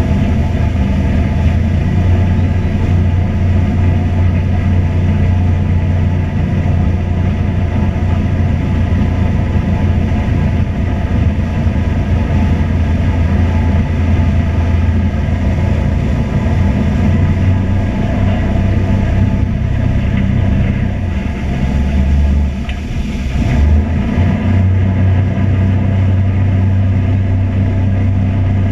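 An engine running steadily with a low hum. Its pitch shifts and the level dips briefly about three-quarters of the way through, then it runs on evenly.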